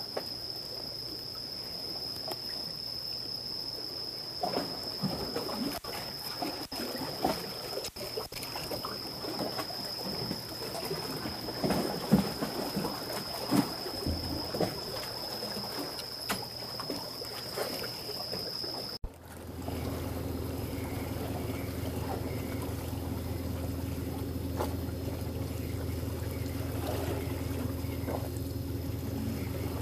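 Water sloshing and trickling with scattered small knocks, over a steady high-pitched whine. About two-thirds of the way through, the sound cuts abruptly to a steady, low engine drone, like a boat's engine running.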